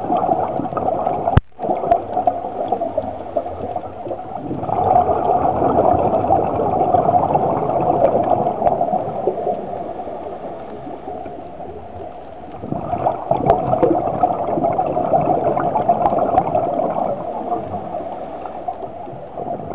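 Scuba regulator exhaust bubbles heard underwater through the camera housing: two long exhalations of several seconds each, with quieter stretches between. A brief click and dropout about a second and a half in.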